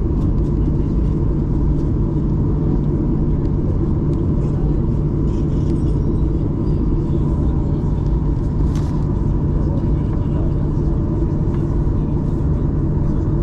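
Steady engine and airflow rumble inside the cabin of a Boeing 737-800, with a few faint steady tones over it.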